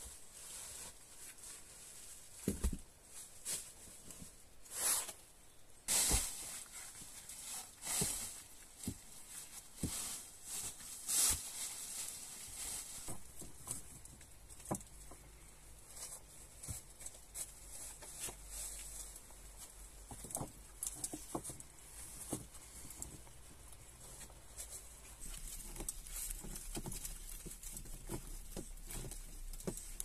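Footsteps shuffling and crunching over dry leaves and loose stones, with irregular rustles, scrapes and small knocks, busiest in the first half. A low steady rumble comes in about halfway through.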